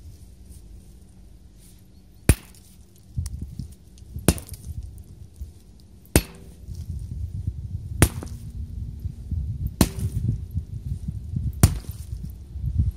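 Sledgehammer blows, six sharp strikes about two seconds apart, over a low rumbling between them.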